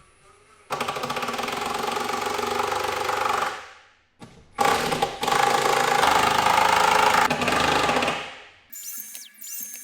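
An electric power tool's motor running twice for about three seconds each time, each run winding down at the end. Faint background music begins near the end.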